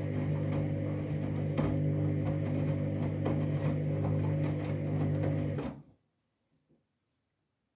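Washing machine motor turning the drum with a steady hum and repeated knocks as an unbalanced bedding load moves inside, then the motor cuts off suddenly about six seconds in.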